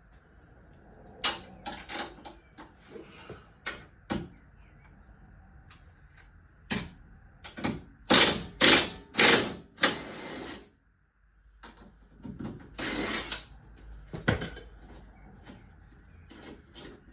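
Hand tools working bolts and metal parts on a car's damaged front end: scattered metal clicks and knocks, with a run of three or four loud scraping strokes about eight seconds in and another loud scrape a few seconds later.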